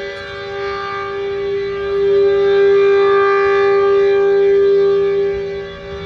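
H.O.R. Super Sirex 15 dual-rotor, dual-tone civil defense siren sounding at full speed, its two steady notes forming a dissonant tritone chord. It swells louder about two seconds in and drops back near the end as the rotating head sweeps around.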